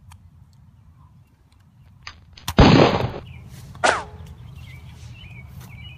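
A single gunshot bang about two and a half seconds in, the shot of a mock pistol duel, with a click just before it. A short falling whistle follows about a second later.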